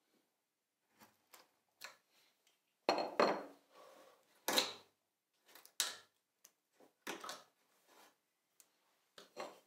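Chisel paring the end grain of a dovetail joint by hand: a series of short, irregular scraping cuts into the wood, the loudest about three and four and a half seconds in.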